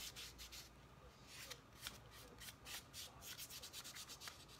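Faint, repeated brushing strokes of a palm rubbing an adhesive silk-screen transfer flat onto a board to stick it down.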